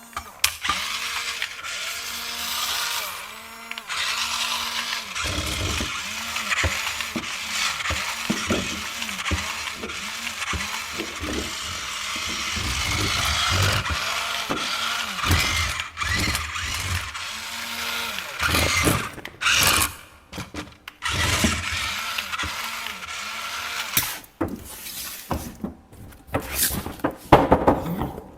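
Small electric motor and plastic gearing of a remote-control toy construction vehicle running, with a steady grinding whir broken by clicks and knocks; near the end it stops and starts with sharper knocks.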